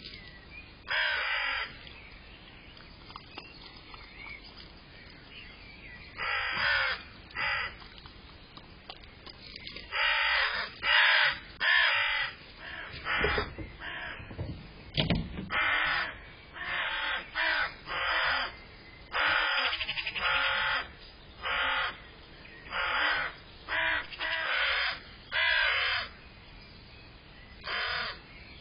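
A crow cawing over and over: harsh calls of under a second each, a few seconds' pause early on, then coming in quick runs of two or three.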